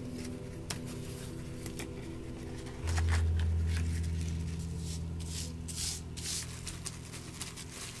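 Soft background music with sustained low notes, a deeper note coming in about three seconds in. Over it come light clicks and crinkles from handling a bamboo rolling mat and laying a dry sheet of laver on it.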